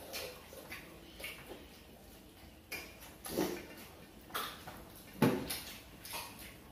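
Scattered short clinks and knocks of plates and bowls on a table, with small eating noises, as people eat by hand from their plates.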